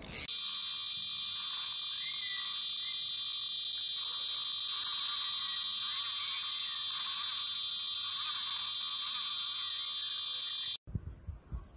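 Electronic carp bite alarm sounding one continuous high tone, the signal of a screaming run as a carp pulls line off the reel; it cuts off suddenly near the end.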